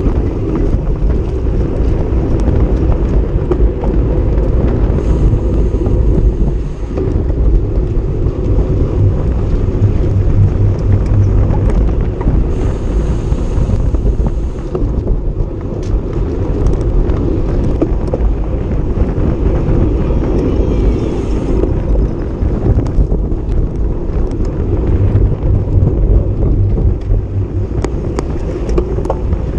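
Wind buffeting a bicycle-mounted action camera's microphone at racing speed: a loud, steady low rumble.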